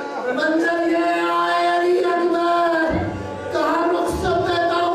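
A man chanting a Muharram mourning lament through a microphone in long, drawn-out, wavering sung phrases, with a brief break about three seconds in.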